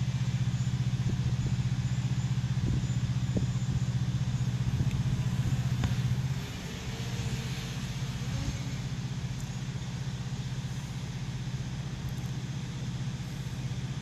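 A vehicle engine idling with a steady low hum, which drops in level about six seconds in and runs on more quietly, with a few faint clicks in the first half.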